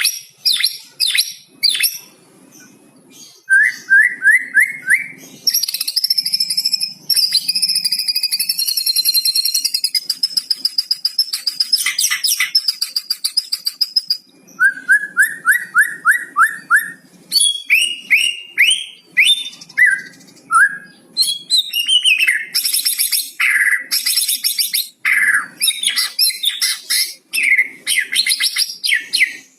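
White-rumped shama (murai batu) singing a long, varied song, with fast runs of short rising notes, dense high chattering phrases and a long steady high whistle in the middle. Its repertoire includes learned mimicry of the cucak cungkok.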